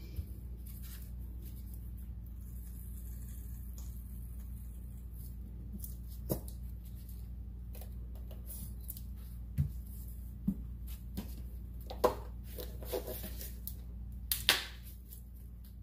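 Plastic paint bottles and a paint cup being handled while acrylic paint is mixed: a scattering of short clicks and knocks, the loudest near the end, over a steady low hum.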